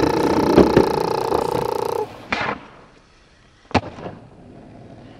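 A held chord of pop music with a couple of knocks, cut off about two seconds in. Then a skateboard on asphalt: a softer knock, and a sharp clack of the board a little before the four-second mark, over faint outdoor hiss.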